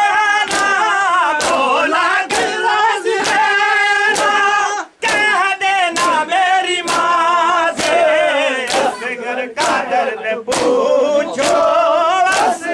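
Men singing a noha, a Shia lament, in long wavering notes, over the massed slap of hands striking chests in matam, close to one beat a second.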